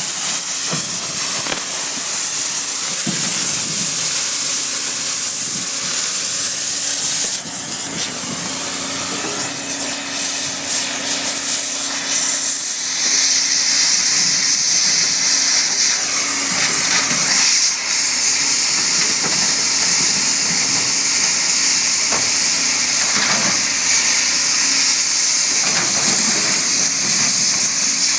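Cutting torch hissing steadily as it burns through the thick steel of a bulldozer blade. The level dips briefly about seven seconds in, and from about thirteen seconds in the hiss turns brighter and sharper.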